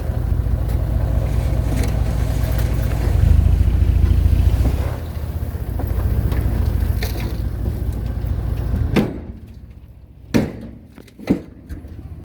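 Heavy machinery's diesel engine running steadily, a little louder around three to five seconds in, then dying away about nine seconds in. Three sharp knocks follow over the next two seconds.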